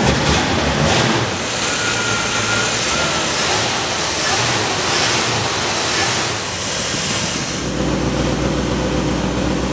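Ford 260 cubic-inch small-block V8 running steadily at idle, with no revving. About three-quarters of the way in, a deeper, stronger exhaust rumble comes in at the tailpipe.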